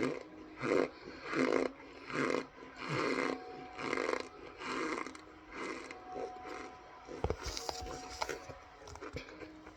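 Close-up chewing of a mouthful of cornstarch: rhythmic crunching about every three-quarters of a second, with a sharp thump and a few clicks around seven seconds in.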